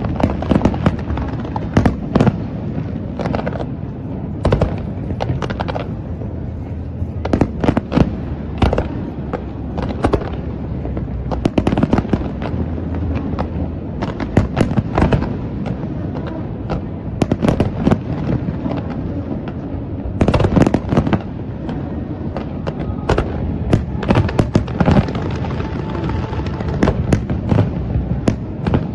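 Aerial fireworks bursting in rapid volleys: many sharp bangs, often in quick clusters, over a steady low rumble.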